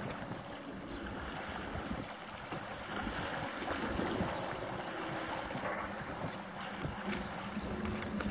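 Steady wind buffeting the microphone over the wash of the sea, with a faint low hum coming in about three seconds in.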